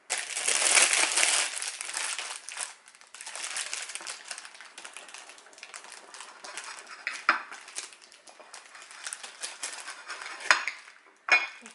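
Clear plastic bread bag crinkling loudly for a couple of seconds as the loaf is handled, then a table knife sawing through the bread in repeated short strokes, with a few sharp clicks of the blade against the plate.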